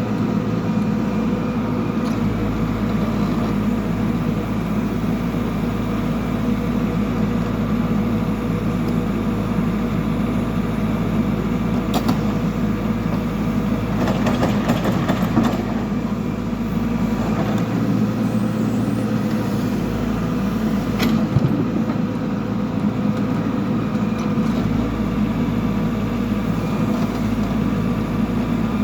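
Backhoe loader's diesel engine running steadily. A sharp knock comes about twelve seconds in, a short run of metallic clanks a couple of seconds later, and another knock a little past twenty seconds, as the machine digs.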